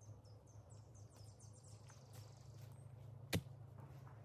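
A single sharp knock about three seconds in, the loudest thing. Before it comes a run of quick high chirps, about three a second, each falling slightly in pitch, over a low steady hum.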